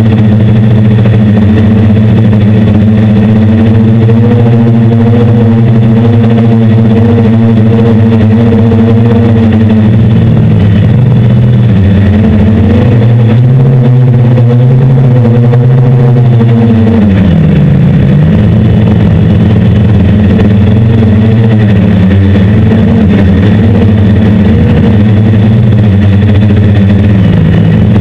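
Hexacopter's six brushless motors and 10-inch propellers buzzing in flight: a loud, steady hum of several tones that shifts in pitch with throttle, dipping and climbing back about two-thirds of the way through.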